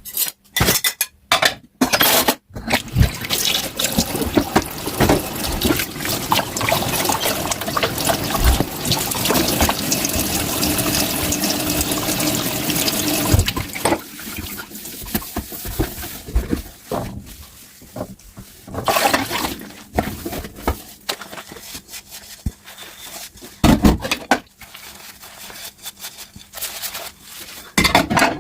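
Dishwashing at a kitchen sink. A few sharp knocks come first, then tap water runs steadily into the sink for about ten seconds. After the water stops there are quieter, short splashes and knocks as the dishes are handled.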